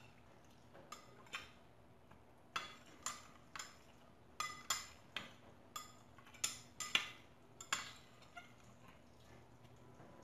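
Metal spoon stirring a thin vinegar sauce in a stemmed glass bowl, clinking lightly against the glass about a dozen times at an uneven pace, stopping about eight seconds in.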